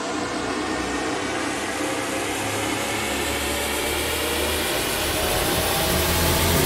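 Supercharged inline-four of a 2023 Kawasaki Ninja H2 running through a Vandemon full titanium exhaust with the baffle removed. Its pitch and loudness climb slowly and steadily as the revs rise.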